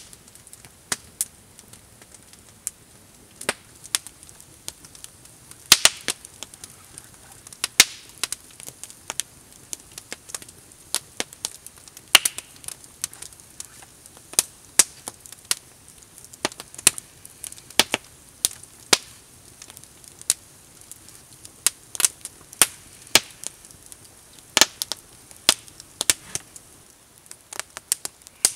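Wood campfire crackling: irregular sharp pops of varying loudness, a few of them louder snaps, over a faint steady hiss.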